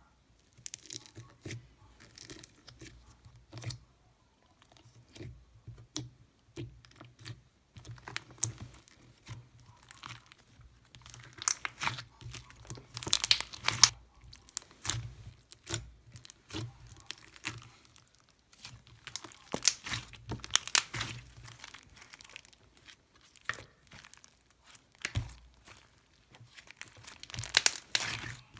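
Hands squishing, poking and stretching slime: a run of sticky crackles and clicking pops in irregular bursts, loudest about halfway through.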